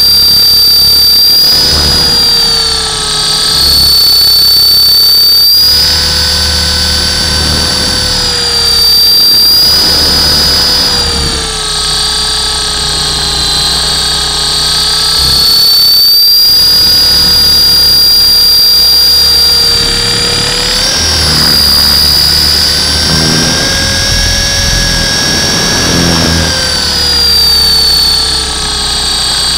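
Radio-controlled Hughes 300 model helicopter in flight, heard from on board: its motor and rotor make a loud, steady high whine. The whine drifts slightly up and down in pitch and loudness, rising for a few seconds past the middle.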